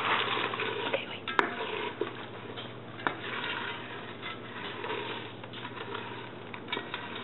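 A spoon stirring crispy cereal into melted chocolate and peanut butter in a pot, a soft scraping and rustling of the cereal with a few sharp clicks of the spoon against the pot, two of them about a second and a half and three seconds in.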